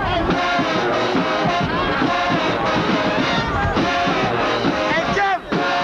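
Marching band playing on the field, brass with drums, the sound cutting out very briefly near the end.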